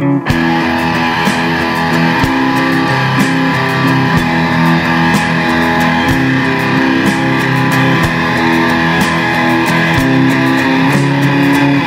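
Guitar-led band music: a held chord gives way, just after the start, to the full band coming in loudly, guitars over a steady beat of drum hits.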